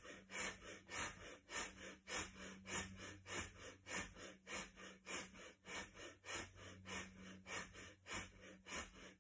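Rapid, forceful rhythmic breathing through the nose, a sharp breath a little under twice a second, as the arms pump up and down in a 'yogi's coffee' breathing exercise.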